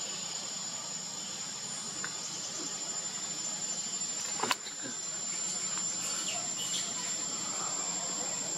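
Steady high-pitched insect chorus, one continuous shrill tone over a constant hiss, with a single sharp click about halfway through.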